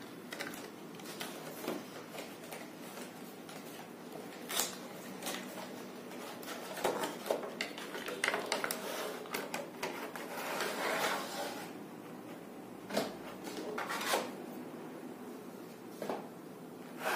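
Hands unboxing a cardboard product box: the cardboard slides and scrapes, with scattered light taps and clicks as the box and a clear plastic tray are handled on a tabletop.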